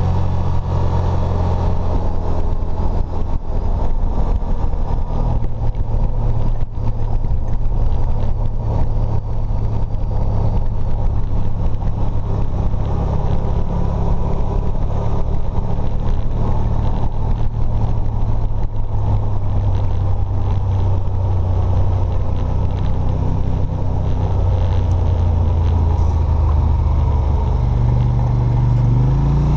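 ATV engine running steadily as the machine drives along a dirt trail, its pitch shifting a little with the throttle and rising near the end.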